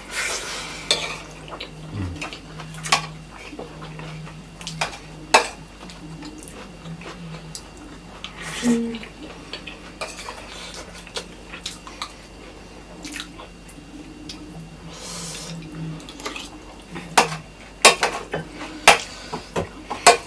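A metal spoon clinking and scraping against metal plates of rice during eating, with a cluster of sharp clinks near the end.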